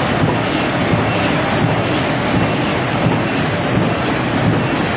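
Automatic carton-box stitching (stapling) machine running, a steady loud mechanical clatter with a faint regular ticking of about three a second.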